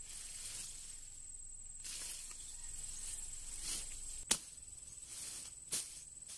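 Curved machete blade swishing and rustling through tall grass and roselle stalks, with two sharp chops about four and five and a half seconds in.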